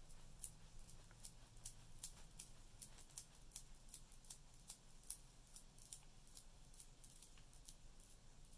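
Faint, irregular light clicks, a few a second: glass and shell beads knocking together as a strung elastic-cord stretch bracelet is stretched over and over to pre-stretch the cord before knotting.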